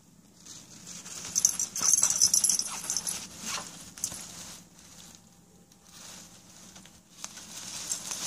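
A thin plastic bag crinkling and rustling as a kitten rolls and paws at it. The loudest stretch of crackling comes about a second and a half in, with shorter rustles later.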